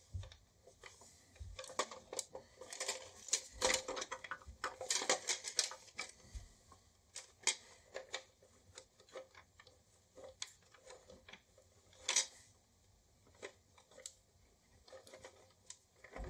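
Irregular clicks, taps and light knocks of hard plastic toy parts being handled and taken apart, busiest in the first half, with a sharper click about twelve seconds in.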